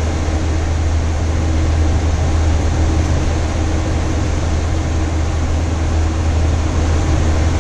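Steady flight-deck noise of a Boeing 737-800 in flight: even rushing of airflow and air-conditioning with the engines' low, steady hum underneath.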